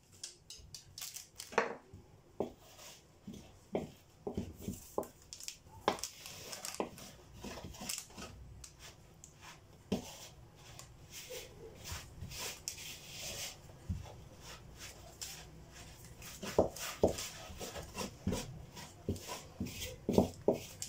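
Wooden spoon stirring crêpe batter in a bowl, with irregular clicks and knocks of the spoon against the side of the bowl.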